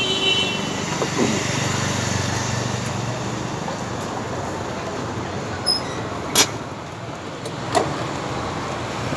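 Steady street background noise with a low traffic hum, and three sharp clicks in the second half.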